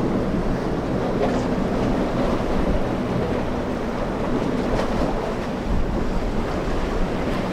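Surf and choppy water with wind buffeting the microphone, under the low drone of a Yellowfin 42's quad 350 hp Suzuki outboards running at speed through rough inlet water.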